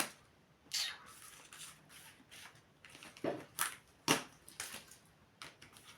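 A series of about seven short rustles and light taps at irregular intervals, the sharpest a little after three and four seconds in: small objects being handled.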